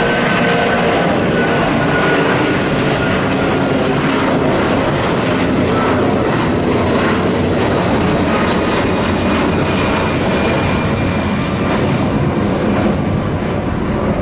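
Twin-engine Airbus A330 airliner's jet engines at climb power after takeoff: a loud, steady rushing noise with a high whine that falls slightly in pitch over the first few seconds.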